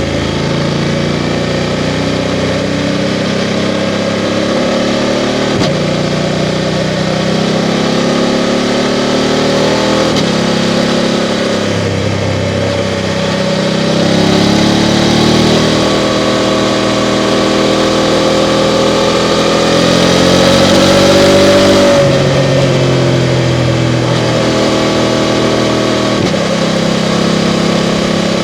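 BMW F 750 GS's 853 cc parallel-twin engine under way, its note rising under throttle and falling back several times as the bike accelerates and slows. The longest, loudest climb comes about three-quarters through and drops off abruptly.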